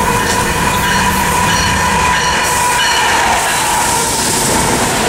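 Freight train rolling past at close range, the rumble of the cars on the rails joined by a steady high-pitched wheel squeal.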